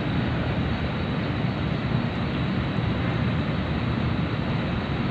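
Steady low mechanical rumble of a docked ro-ro passenger ferry running at its berth, its engines idling with the bow ramp down.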